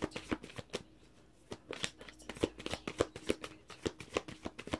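A deck of tarot cards being shuffled by hand: a quick run of papery clicks and slaps, breaking off briefly about a second in, then going on.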